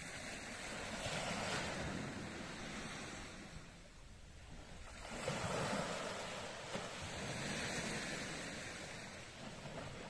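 Sea surf: waves washing onto the shore, the rush rising and falling three times as each wave breaks and draws back.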